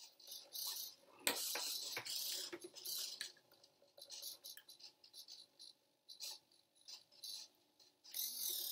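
Small hobby servo motors whirring in short, irregular bursts as they tilt a cardboard marble labyrinth, with a couple of sharp knocks, likely the marble rolling and hitting the board's walls.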